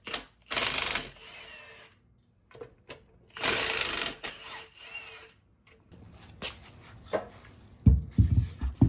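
Two short bursts from a cordless power tool, about three seconds apart, with light metallic clicks between them. Near the end come heavy clunks as a cast-iron cylinder head is handled.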